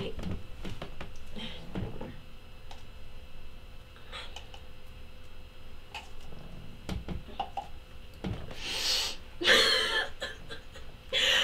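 A young woman's fake crying: a few faint rustles, then loud sniffs and shaky, sobbing breaths near the end.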